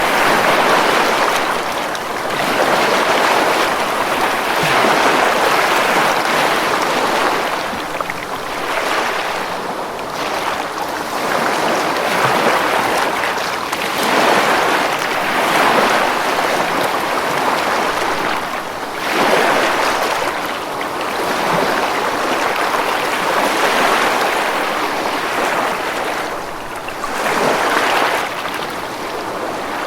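Ocean surf washing onto a beach, a continuous hiss of breaking waves that swells and eases every few seconds.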